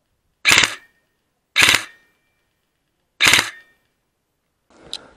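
Three airsoft rifle shots, each a sharp crack with a brief ringing tail, the second about a second after the first and the third about a second and a half later, with silence between. A faint rustle and a small click come near the end.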